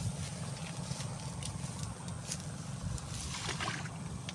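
Footsteps rustling through tall grass at a canal edge, a few soft brushes and steps spread through, over a steady low hum.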